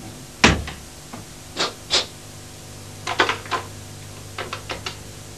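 A telephone being handled: clicks and knocks of the handset and set, with one heavier thump about half a second in, a few separate clicks, and a quick run of small clicks near the end.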